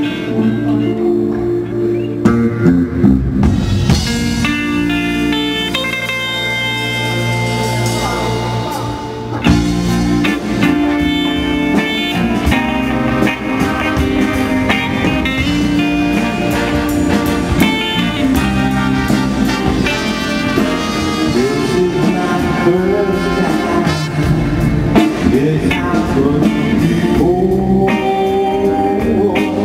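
Chicano soul band playing live: electric guitars, drums, keyboards and saxophone, with a lead singer on a microphone.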